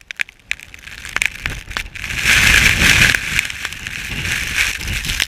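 Storm wind buffeting the microphone, with a hiss and many small irregular ticks of driven graupel and snow pellets striking, loudest about two to three seconds in.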